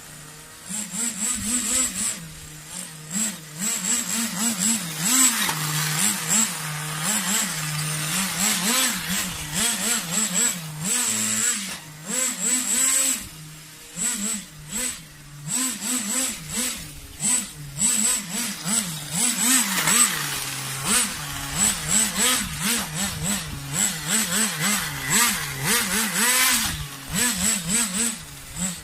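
Small nitro RC car engine running, its revs rising and falling over and over as the throttle is blipped.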